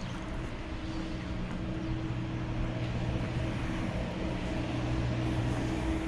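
An engine running steadily with a constant hum, slowly getting a little louder.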